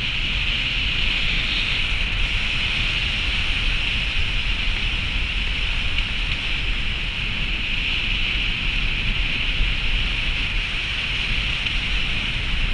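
Steady rush of wind over a roof-mounted camera's microphone on a moving car, over a constant low rumble of tyres on the snow-packed road.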